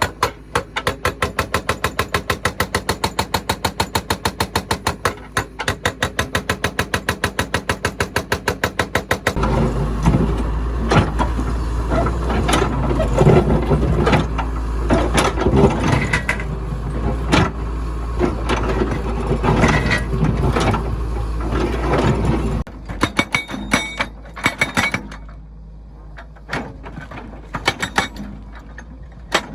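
Heavy machinery engine running with a rapid, even knocking beat. About nine seconds in it gives way to louder, heavier working noise with a deep hum and irregular knocks and clanks. Near the end this drops to quieter scattered clicks.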